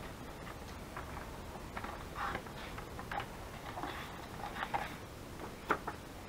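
Sliding-blade paper trimmer and paper being handled: scattered light clicks, taps and rustles of the cutter head and the sheet, with two sharper clicks close together near the end.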